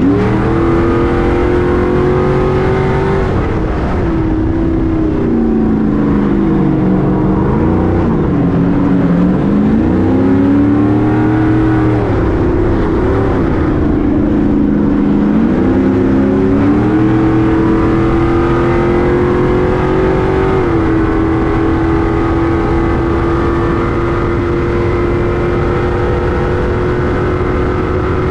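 A Stadium Super Truck's engine under racing load. Its revs fall and climb again twice in the first half, then hold nearly steady for the last several seconds.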